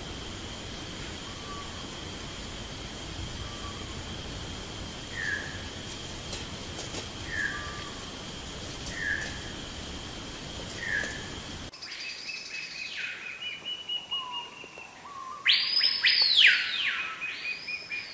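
Bird calls. At first there are four short, evenly spaced chirps over a steady high drone. About two-thirds of the way through, the sound cuts to louder bird calls with rising and falling notes, repeated several times and loudest near the end.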